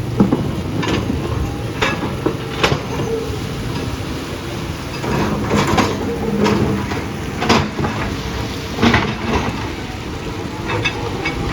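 Earthmoving machine's diesel engine running under irregular clanks and knocks of rock and metal, about a dozen sharp hits spread through.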